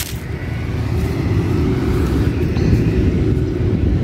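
A steady low rumble, with a faint thin tone above it.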